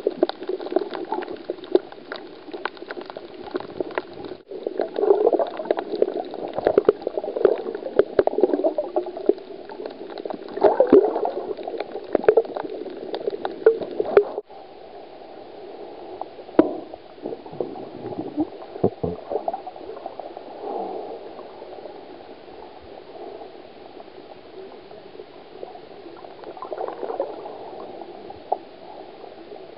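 Underwater sound picked up by a submerged camera: a bubbling, gurgling wash of water, full of sharp crackling clicks for the first fourteen seconds or so. After that it turns smoother and quieter. The sound breaks off and changes abruptly at about four and a half and fourteen and a half seconds.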